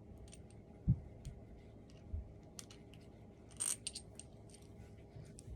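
Small metal screws and hardware pieces clinking lightly as they are handled and sorted, with a soft thump about a second in and a brighter ringing clink a little past halfway.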